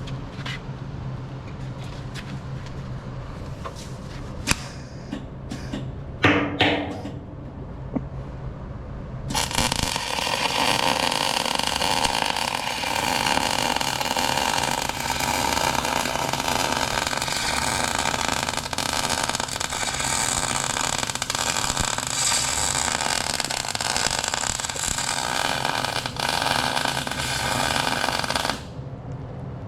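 Electric arc welding on a steel frame: a loud, steady hiss starting about nine seconds in and running for about twenty seconds before cutting off sharply. Before it there are a few knocks and clicks.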